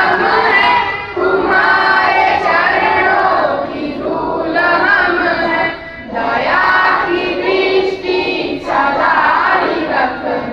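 A group of schoolchildren singing together in unison, in sustained phrases with short breaks between lines.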